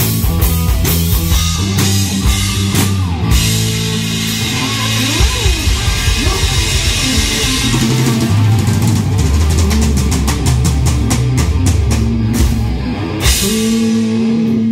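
Rock band playing: drum kit, electric guitar and bass, with bent guitar notes in the first half, a dense run of drum hits in the second half and a held note near the end.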